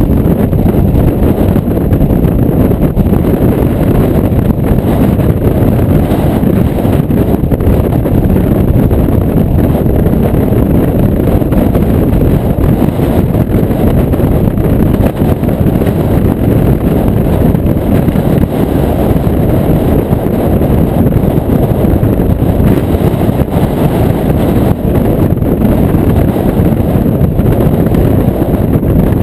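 Very strong wind buffeting a chest-mounted GoPro's microphone: a loud, steady low rumble with no letup.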